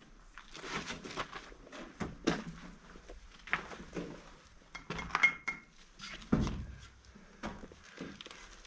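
Glass and metal debris being handled and knocked together: a string of clinks and knocks, the loudest a short ringing clink about five seconds in, followed by a heavy thud.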